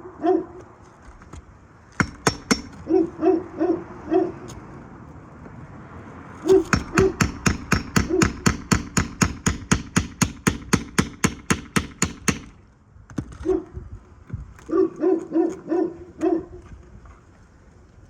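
Hand roofing tools striking metal, each blow ringing with a clear pitch. Short groups of four or five taps come first, then about six seconds of fast, even strikes at roughly five a second, typical of working a flat bar under shingles to break their seal.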